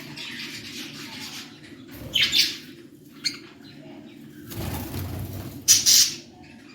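Budgerigars chirping, with two loud, short bursts of wing flapping, about two seconds in and near the end.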